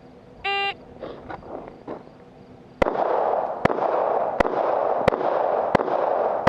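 An electronic shot timer beeps once, briefly. About two seconds later a pistol starts firing in a steady string, about one shot every 0.7 s, six shots in all.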